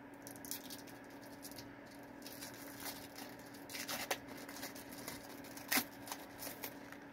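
Faint crinkling and peeling of a Fruit Roll-Up being unwrapped and pulled off its plastic backing sheet: scattered short, sharp crackles over a low steady hum.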